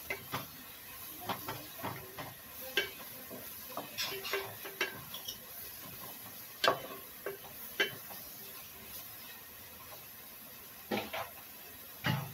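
Sliced onions sizzling in oil in a metal pot while a spatula stirs, scraping and knocking against the pot in irregular strokes. The stirring stops after about eight seconds, leaving a faint steady sizzle, then a few more knocks near the end.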